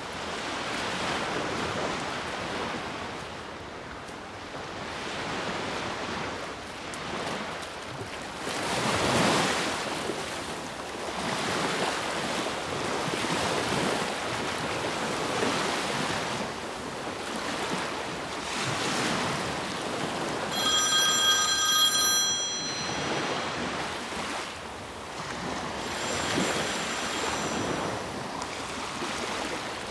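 Sea waves breaking and washing on the shore, surging and easing every few seconds. About two-thirds of the way in, a telephone rings briefly, and it rings faintly again near the end.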